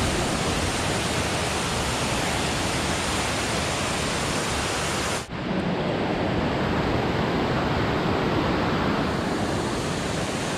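A steady, even rushing noise with no voices. About five seconds in it drops out for an instant and comes back with much less high hiss.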